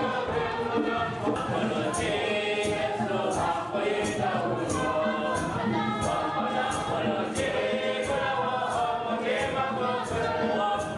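A congregation singing a hymn together, with a steady percussive beat of about three strokes every two seconds.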